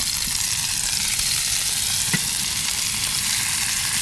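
Fresh tuna steaks searing in hot vegetable oil in a frying pan, a steady sizzle, with one light tap about two seconds in.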